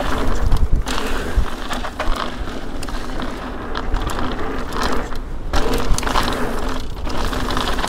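Mountain bike, an Ibis Ripmo, riding fast down dry dirt singletrack: steady tyre noise on loose dirt with a low rumble, and the chain and parts rattling and clicking over bumps.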